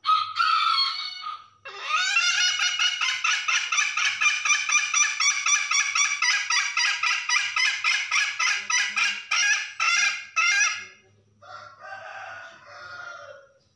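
Domestic hen giving her 'ngekek' call, the call of a hen for a rooster: a loud, rapid run of harsh notes, about five a second, kept up for about nine seconds, then a softer, lower call near the end.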